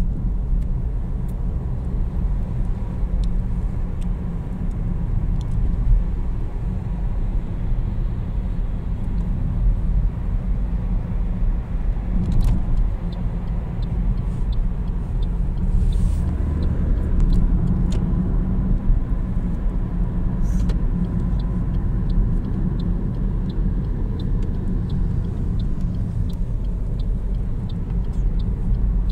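Car driving: steady low rumble of the engine and tyres on the road.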